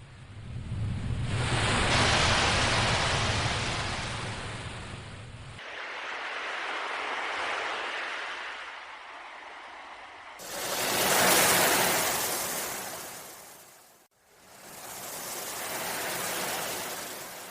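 Sea waves breaking and washing back, four swells of surf that each rise and fade, with abrupt cuts between some of them.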